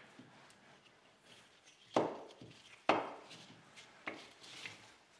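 The wooden jaw of a homemade bar clamp being handled and fitted onto its steel bar: two sharp wood-and-metal clunks about two and three seconds in, then lighter knocks.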